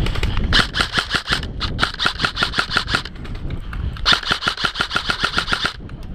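Airsoft rifle firing on full auto: two long bursts of rapid, even shots at about nine a second, the second burst starting about four seconds in.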